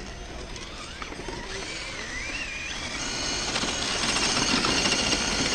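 Radio-controlled scale crawler's brushless electric motor whining, its pitch wavering up and down with the throttle. From about three seconds in it grows louder, with the tires spinning and scrabbling in loose dirt.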